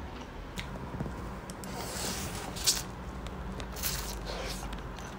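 Close-miked slurping of instant fried noodles, in short hissy bursts from about two seconds in, after a few light clicks of metal chopsticks.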